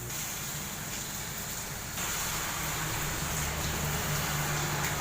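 Steady rain hiss with a low motor hum under it, both growing louder about two seconds in.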